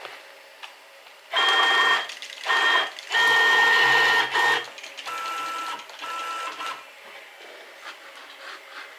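CNC machine's stepper motors whining through a series of short moves: three loud, higher-pitched moves in the first few seconds, then two quieter, lower-pitched ones.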